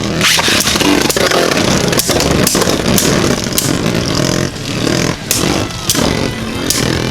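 Two Beyblade Burst spinning tops, Vise Leopard and Winning Valkyrie, whirring and scraping across a plastic battle stadium. Sharp clacks ring out as they collide, about ten times, every half second to a second.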